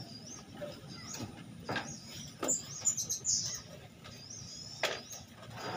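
A knife scraping scales off a papuyu (climbing perch), a few short separate strokes. A bird repeats a short, high, wavering chirp over it.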